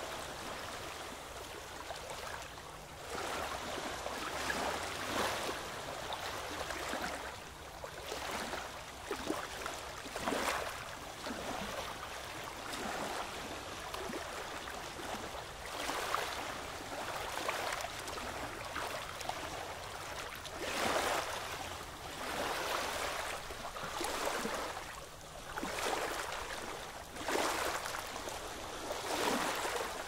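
Ocean surf: waves breaking and washing up a beach, the rush of water swelling and fading every few seconds.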